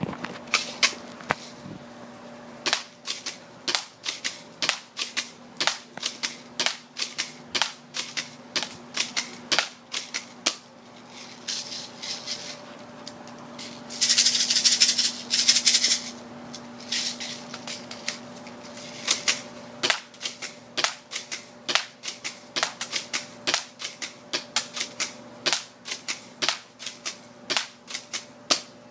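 Airsoft gun firing shot after shot, sharp cracks at an uneven pace, with a rapid, louder burst of about two seconds around the middle.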